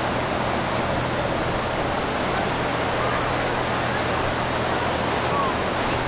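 Ocean surf washing onto a beach, a steady even rush of noise.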